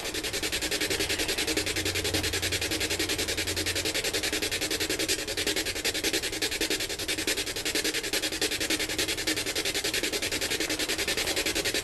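SB7 spirit box sweeping the AM/FM radio bands at a very fast rate. It puts out a steady stream of radio static chopped into rapid, even pulses as it steps from frequency to frequency.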